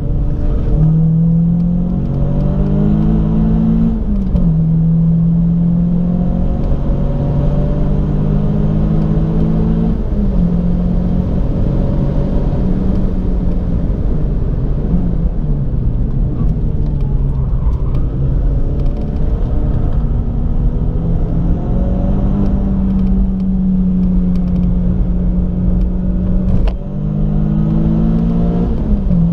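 Renault Clio 182's 2.0-litre 16-valve four-cylinder engine heard from inside the cabin under hard track driving, revs climbing and then dropping sharply at each gear change, about four seconds in, about ten seconds in and again near the end, over steady road and tyre noise.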